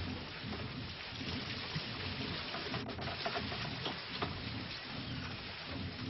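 Water splashing steadily at a wooden mill wheel, with scattered light clicks and knocks.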